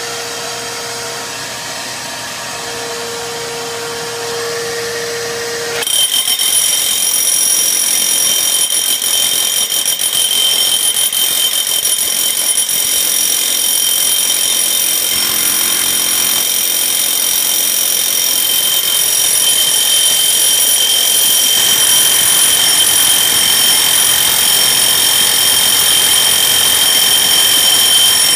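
Electric drill with a 5-inch core bit cutting a hole through the basement's concrete floor: a steady hum at first, then about six seconds in a much louder, high-pitched steady whine takes over as the bit grinds into the floor, and it grows a little louder later on.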